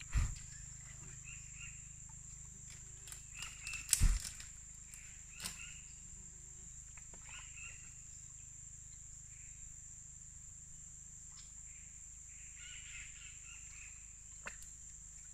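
Steady high-pitched drone of rainforest insects, with faint chirps over it. A few sharp knocks cut in, the loudest about four seconds in.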